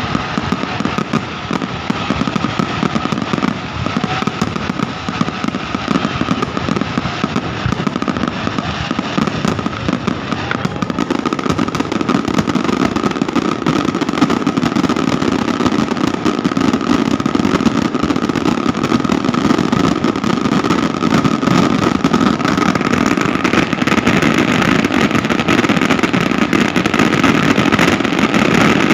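Fireworks display going off in a dense, continuous barrage of crackling bursts, with a steady high tone running underneath and a heavier low rumble building up about a third of the way in.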